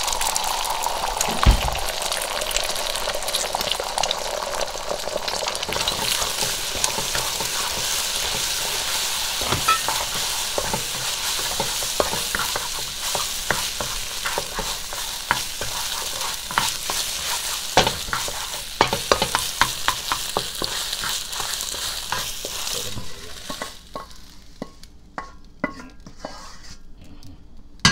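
Beaten egg sizzling in hot oil in a nonstick pan, with a wooden spatula scraping and tapping the pan as the egg is scrambled. Near the end the sizzling stops, leaving a few scattered knocks.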